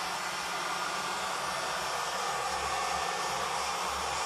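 Heat gun blowing steadily, an even rushing of air with a faint low motor hum, run over wet poured acrylic paint to bring up cells.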